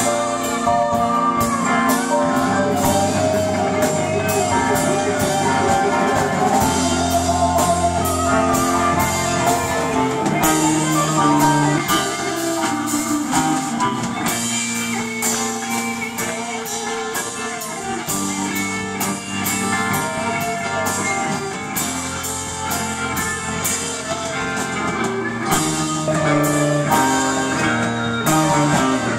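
Live band playing: two electric guitars over a steady drum-kit beat, with keyboard, loud and continuous.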